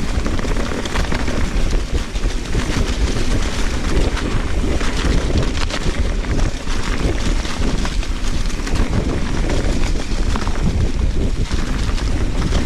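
Wind rushing over the action camera's microphone as a Trek Fuel EX 7 mountain bike coasts fast downhill, tyres rumbling over the dirt trail with a steady run of small knocks and rattles from the bike over rough ground.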